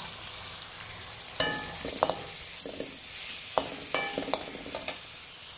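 Sliced onions sizzling in hot oil in a wide metal pan. From about a second and a half in, a metal slotted spoon stirs them and clinks against the pan several times, each clink ringing briefly.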